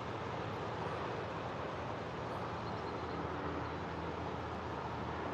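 Steady outdoor background rush, even and unbroken, with no distinct events standing out.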